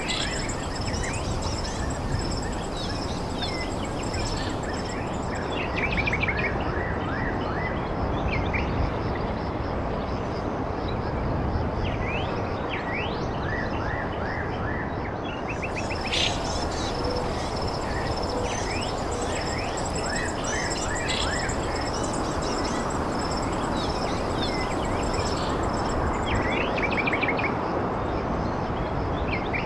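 Birds chirping in scattered short, quick calls over a steady noisy background hiss, with a thin, steady high-pitched whine throughout.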